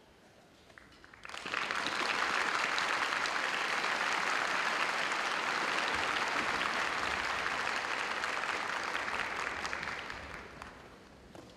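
Audience applauding: dense clapping that starts suddenly about a second in, holds steady, and dies away near the end.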